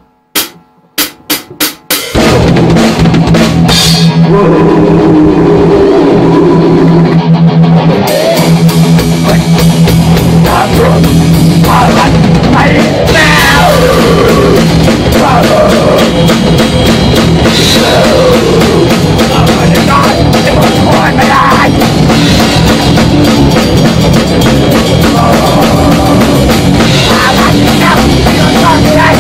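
Loud rock music: a few separate drum hits open it, then the full band with drum kit comes in about two seconds in and plays on steadily.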